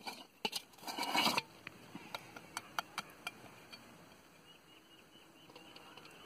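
Perforated metal skimmer scraping curry from a metal pot and knocking against the pot and the coconut shells. A brief scrape about a second in, then a run of sharp clicks over a couple of seconds.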